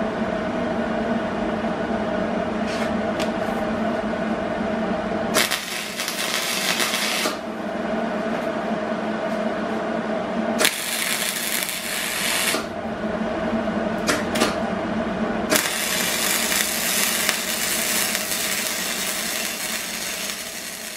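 Hobart Handler 140 MIG welder welding steel: three runs of arc crackle and hiss, about two seconds, two seconds, then about five seconds, with a few brief strikes between. A steady hum runs underneath.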